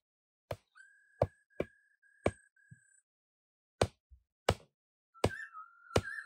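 Repeated sharp knocks of something being struck, about eight at uneven spacing, with a thin, high, wavering whine heard in two stretches between them.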